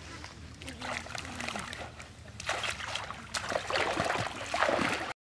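Water splashing and trickling as people handle fish and wade through shallow river water, the splashes getting louder and closer together in the second half. Faint voices murmur at first, and the sound cuts off abruptly a little before the end.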